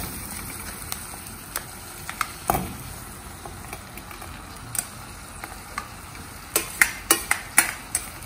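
Hot oil tempering of mustard seeds, cumin and curry leaves sizzling softly in a clay pot as leftover rice is tipped in, with a plastic spatula scraping and tapping the rice off a perforated steel colander. The clicks are scattered at first and come in a quick run near the end.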